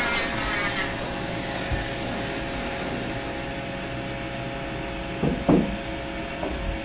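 Flexible-shaft power carver's bur grinding wood, stopping about a second in, leaving the dust-collection vacuum running steadily through its hose. Two or three short knocks about five seconds in.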